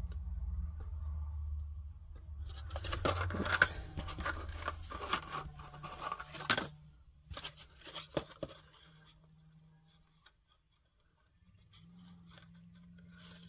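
Crackle and rustle of kraft cardboard being handled and pressed, with the short tearing sound of liners being peeled off double-sided tape strips, as a small cardboard box is stuck together edge to edge. The handling is busiest in the first half and goes almost quiet for a couple of seconds near the end.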